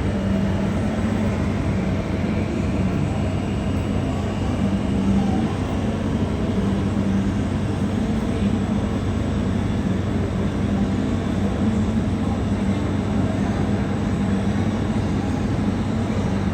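Steady low rumble of jet airliner engines, with a constant hum running under it.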